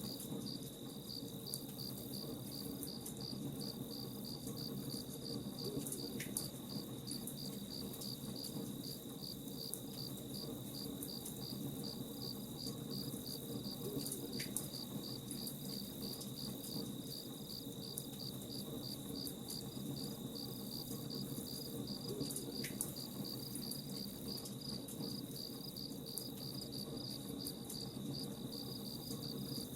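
Crickets chirping in an even, steady pulse over a crackling campfire, with a faint low rumble. A short falling note recurs about every eight seconds.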